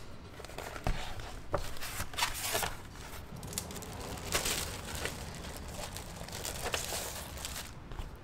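Clear plastic bag crinkling and rustling as a thin letterpress printing plate is slid out of it and handled. The rustles come in short, scattered bursts, with a few soft taps.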